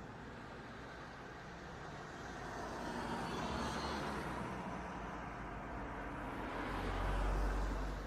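Car driving: steady road and engine noise that swells twice, about three and a half seconds in and again near the end, the second time with a deep low rumble.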